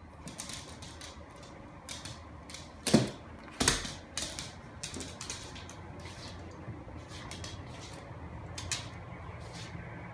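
Small dog's claws clicking and skittering on a hardwood floor in quick, irregular taps, with two louder knocks about three seconds in.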